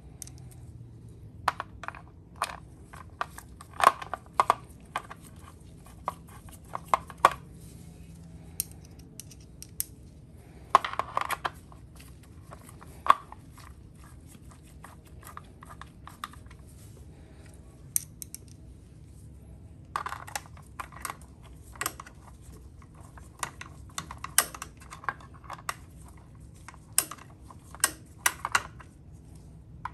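Gloved hands working on motorcycle parts, giving irregular clusters of short sharp clicks and taps of tools and metal parts being handled, over a faint steady low hum.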